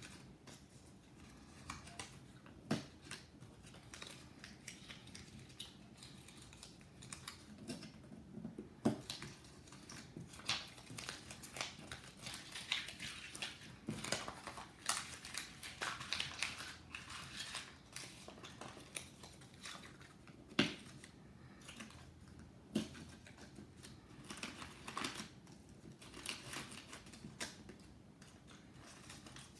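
Small squares of card and paper rustling and shuffling as hands sort and stack them, with scattered light taps and knocks against the table.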